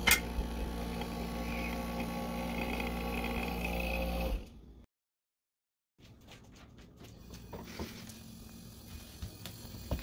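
Refrigerator compressor running with a steady low hum, powered up with its broken starter relay bypassed by a jumper across the relay connections, a click at the start. The hum stops abruptly a little past four seconds in, and after a gap of silence only faint clicks follow.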